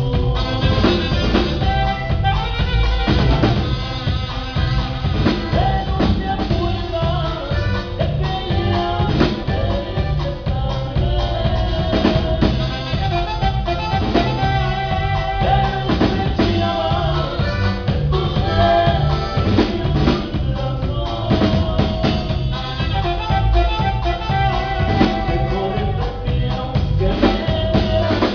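A band playing live, with a drum kit keeping a steady beat of kick and snare under bass and a melody line.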